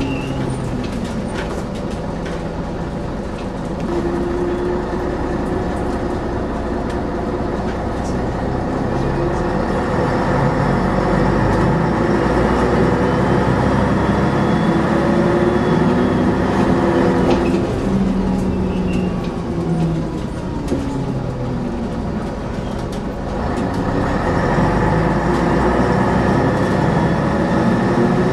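Scania double-decker bus engine and drivetrain heard from inside the lower deck while driving, the engine note rising and falling as it changes gear. It eases off about two-thirds through, then pulls away again.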